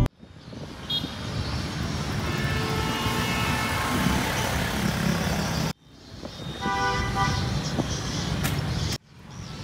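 Busy city street traffic: motorbikes and cars running past, with short horn toots. The sound breaks off abruptly twice where the footage is cut.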